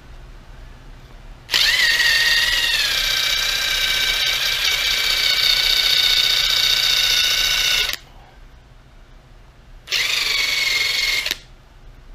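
Electric drill spinning a polishing pad against a clear plastic gauge-cluster lens, run twice: about six seconds, then after a pause a burst of about a second and a half. Each run starts with a whine that sags in pitch as the pad is pressed on and loaded, then holds steady.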